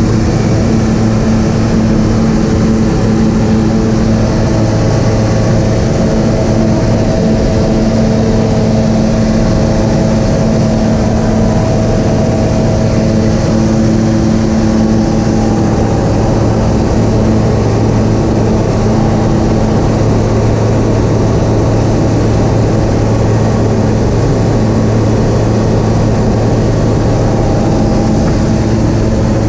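Aeroprakt A-22 ultralight's engine and propeller in cruise, a loud, steady drone with an unchanging low hum.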